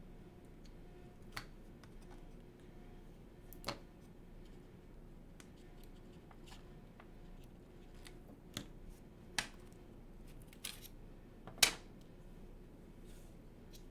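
A handful of small, sharp clicks and snips, spread out with pauses between, the loudest about two seconds before the end: hands working on the opened keyboard and tape, taping the loose, rattling battery down to the PCB.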